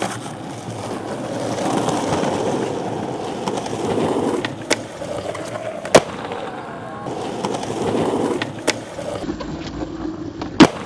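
Skateboard wheels rolling on a concrete path, broken by several sharp clacks of the board popping and hitting the ground; the loudest clack comes near the end.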